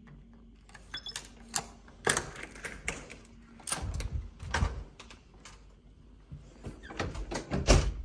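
Hotel room door being unlocked with a key card and opened: a run of sharp clicks and knocks from the lock and handle, then heavier thuds as the door swings, with the loudest knocks near the end.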